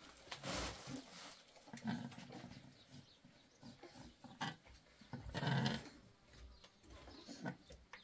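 Livestock bleating several times, separate calls, the loudest a little past the middle.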